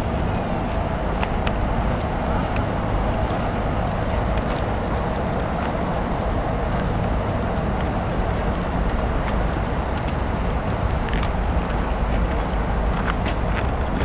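Steady outdoor city background noise: an even rumble, most of it low, with a few faint clicks.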